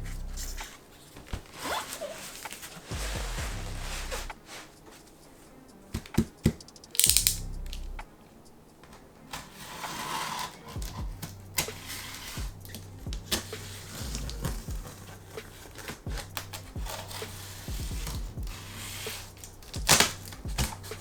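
Background music with a steady bass pattern, over the handling sounds of a figure's packaging being opened: plastic and cardboard rustling, crinkling and tearing, with scattered clicks and knocks. The loudest rustles come about seven seconds in and near the end.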